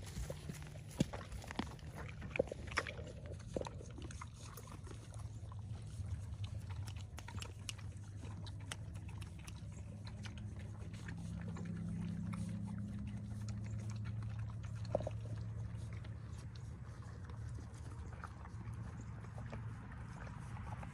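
Donkey feeding at the ground close by, with chewing and snuffling sounds. A cluster of sharp clicks comes in the first few seconds, over a steady low hum.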